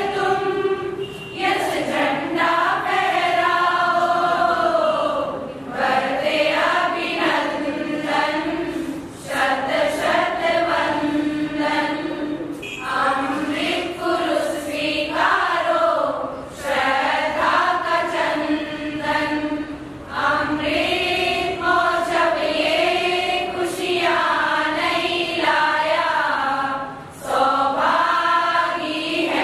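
A group of women singing a Hindi Jain devotional song (geetika) together, in sung phrases of a few seconds each with short breaks for breath.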